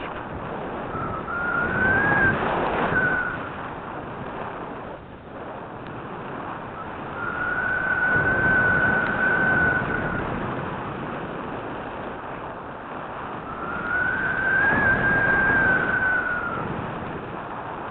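Airflow rushing over a model plane's onboard camera in flight, swelling three times. Each swell carries a high, steady whine that rises slightly, holds for a couple of seconds and falls away.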